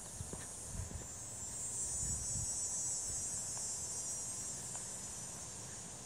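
Steady high-pitched chorus of meadow insects, with a few soft thuds of footsteps in the first half.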